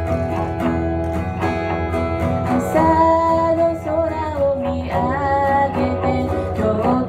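Acoustic guitar strumming a steady accompaniment, joined about three seconds in by a woman singing a pop melody into a microphone.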